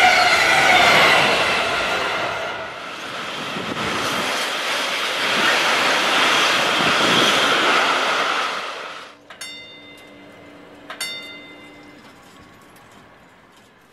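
Passing trains at speed: a loud rush of wheels on rail with a few steady tones, a brief dip, then a second train's long rushing pass. After about nine seconds the train noise stops abruptly. Two short metallic dings follow, a second and a half apart, over a faint low hum.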